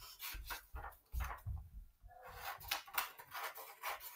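Sheets of printed paper being handled and laid over a spiral notebook: quiet rustling with light taps and bumps, pausing briefly about a second and a half in.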